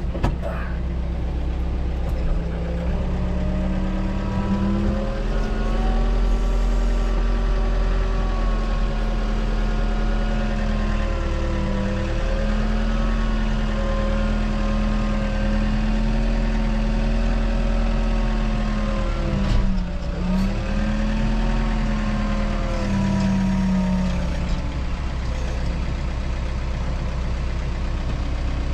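Tractor engine running steadily, its revs brought up a few seconds in, dipping briefly and recovering later, then easing back down as it carries a freshly milled post.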